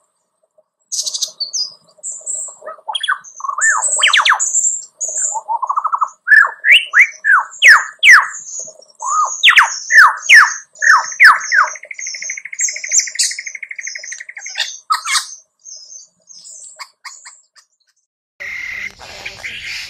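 Male lyrebird singing a fast medley of loud whistles, rising and falling sweeps and high chirps, with a rattling trill held steady for about three seconds in the middle. The song stops a couple of seconds before the end, and a steady hiss starts.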